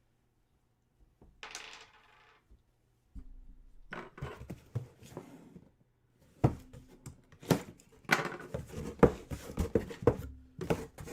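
Hands opening a sealed trading-card hobby box: a brief crackle of wrapping, then cardboard and card packs rustling, tapping and clicking, busier in the second half.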